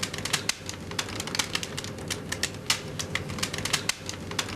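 Rapid, irregular crackling and clicking, several sharp clicks a second, from a balloon chilled in liquid nitrogen, over a faint steady hum.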